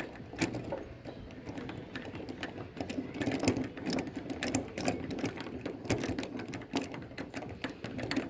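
Paintless-dent-repair bridge puller being tightened down on the car body, with quick, irregular clicks and rubbing from its knob and parts as it is turned and handled.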